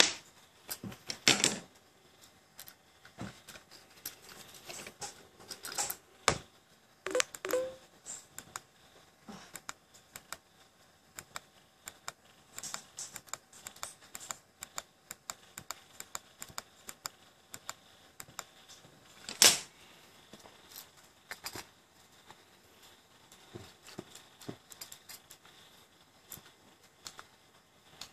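Handling of a K200 metal tube e-cigarette mod: scattered clicks, taps and light knocks as it is picked up, its buttons pressed and the clearomizer tank fitted, with one sharp knock about two-thirds of the way through.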